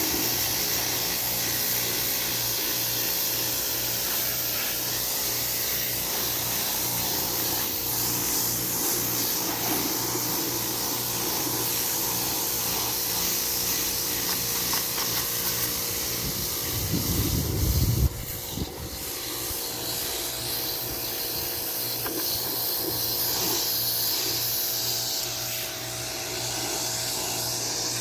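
Pressure washer spraying a water jet against a boat's hull: a steady hiss of water over the washer's running pump hum. A little past halfway there is a brief low rumble, after which the low hum drops away.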